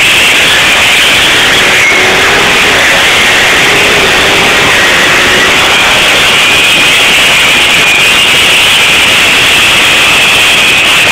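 Honda motorcycle doing a burnout: the engine runs hard while the rear tyre spins against the paving. The result is a loud, constant, distorted noise that stays at the top of the recording's level.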